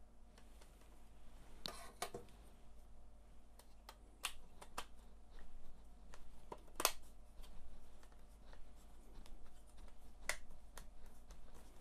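Sharp plastic clicks and knocks from a refilled HP 107 laser toner cartridge being handled and reassembled: a few scattered clicks, a double one about two seconds in and the loudest about seven seconds in.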